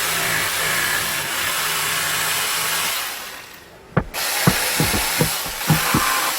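A power tool running steadily, then winding down and stopping about three seconds in; after a short lull come a series of sharp knocks and clicks.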